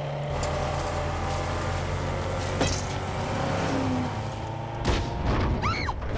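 Truck engines running steadily during a chase on a gravel road, with a sharp knock about two and a half seconds in and a heavier surge near the end, where a brief squeal rises and falls.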